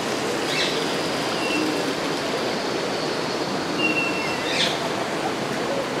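A few short bird chirps and thin high whistles over a steady rush of flowing water.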